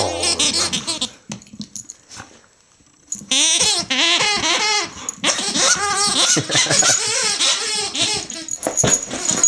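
A rubber squeaky toy squeaking over and over as a greyhound chews on it. After a quiet spell it squeaks in long, rapid runs from about three seconds in, with a short break in the middle.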